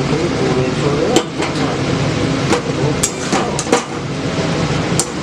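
Metal utensil knocking against a cooking pan about six times while stirring, over a steady loud background noise.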